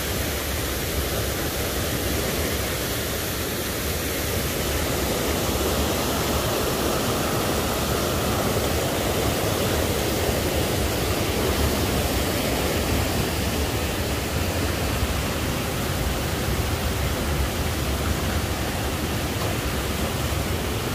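Steady rushing of a rocky stream tumbling over small rapids and cascades: an even, unbroken water noise.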